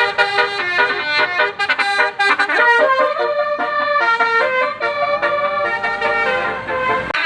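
A bus's telolet basuri horn, a multi-trumpet air horn set, playing a fast melody of many short notes, with a rising slide about five seconds in.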